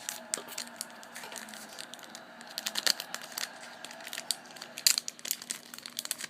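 Foil wrapper of a Harry Potter Memorable Moments trading-card pack crinkling and tearing as it is opened, with many irregular crackles.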